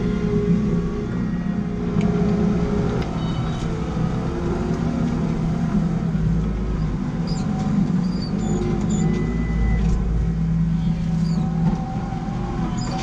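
JCB Fastrac 4220's six-cylinder diesel engine running steadily under load while pulling a plough through the ground, with a few faint squeaks and clicks in the second half.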